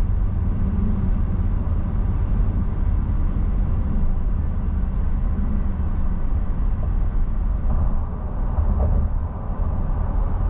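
Steady low rumble of tyre and road noise inside a car's cabin while driving on a highway.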